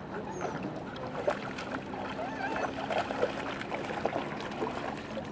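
Two large dogs, a German shepherd and a husky-type dog, wading in shallow pond water: irregular splashing and sloshing as they move their legs through it.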